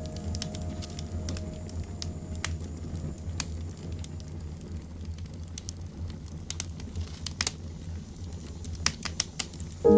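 A steady low hum with scattered small clicks and crinkly rustles, like light handling of paper and objects at a desk.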